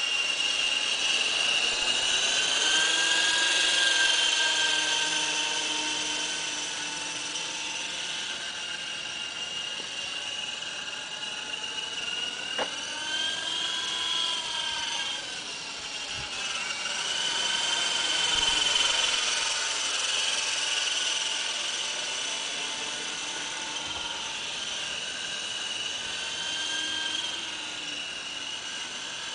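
Radio-controlled MD 530 model helicopter flying, its motor and rotors giving a high whine that rises and falls in pitch and loudness as it manoeuvres.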